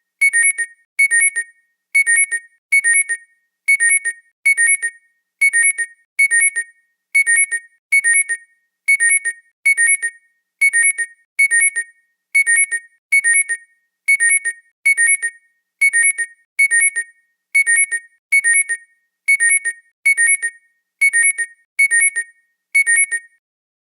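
Electronic alarm ringtone: short, high beeps in pairs, repeating evenly about every second, then stopping just before the end.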